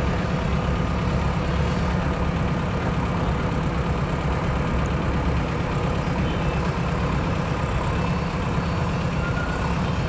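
JCB 3DX backhoe loader's diesel engine running steadily as the machine pushes mud with its front loader bucket.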